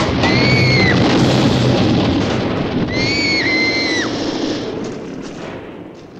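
Explosion and battle sound effects from a film soundtrack: a dense, loud rumbling din with two high whistles, one just after the start and one about three seconds in. It fades away over the last two seconds.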